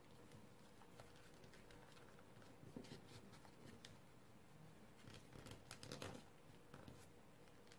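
Near silence: faint rustling and soft ticks of a sheet of origami paper being handled and folded by hand, a little more around three seconds in and again around six seconds, over a faint steady hum.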